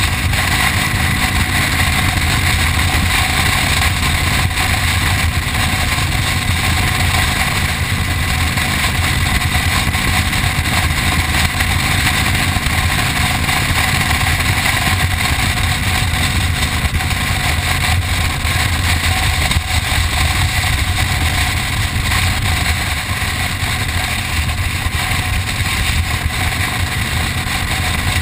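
A touring motorcycle's engine running at a steady cruise, heard from on board, mixed with a constant rush of wind and road noise.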